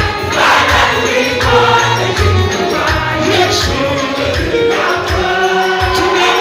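Gospel worship music: voices singing together over a steady bass, with a tambourine-like jingle.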